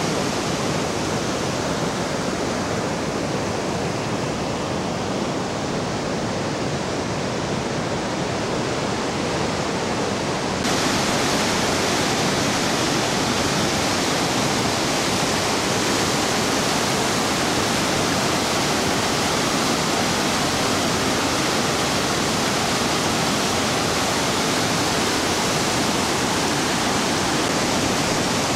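Steady rush of a mountain stream running over stones, which jumps a little louder and brighter about ten seconds in.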